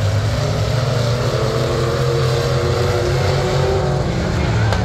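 Pure Stock dirt-track race cars' engines running hard together through a turn, a steady loud engine note whose pitch drifts slightly up and down.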